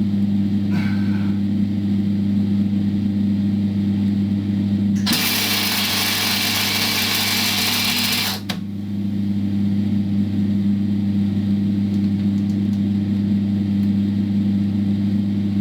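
Electric welder humming steadily, with about three and a half seconds of crackling, hissing arc in the middle as a nut is welded onto a seized engine mounting bolt.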